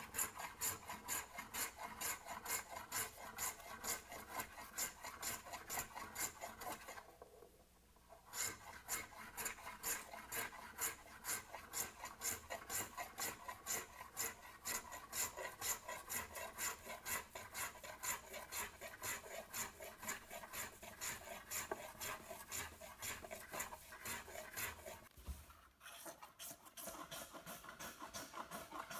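Small hand plane shaving a wooden stool seat in quick, short strokes, about three a second, each pass a dry scrape. The strokes pause briefly about seven seconds in and again a little before the end.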